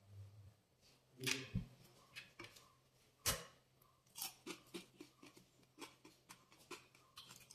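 Faint, irregular small clicks and taps, with two louder knocks about one and three seconds in.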